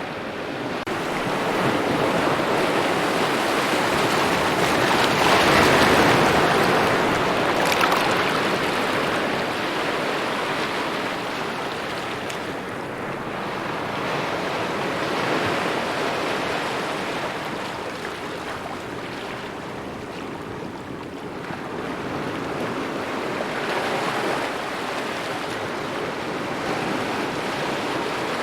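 Gentle ocean waves lapping at the shore, a steady wash of water that swells and ebbs every several seconds, loudest about six seconds in.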